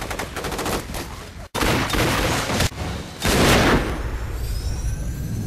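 Rapid gunfire, many shots in quick succession, cut off abruptly about a second and a half in and then resuming, loudest around three and a half seconds in.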